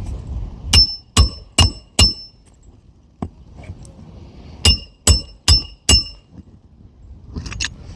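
Hammer driving roofing nails by hand into an asphalt shingle: two runs of four ringing blows about half a second apart, the second run starting a couple of seconds after the first.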